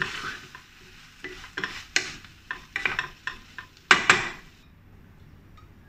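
A wooden spatula stirring and scraping shrimp and asparagus in a nonstick frying pan, with irregular scrapes and clicks over a light sizzle. The loudest scrape comes about four seconds in, and the stirring stops soon after.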